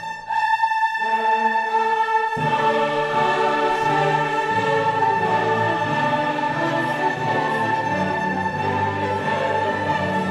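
Orchestral classical music with a choir, sustained chords; fuller low notes come in about two seconds in.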